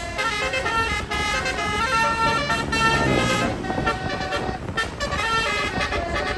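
Bus telolet (basuri) musical horn playing a tune of held notes that step to a new pitch several times a second, with a brief lower sliding sound about three seconds in.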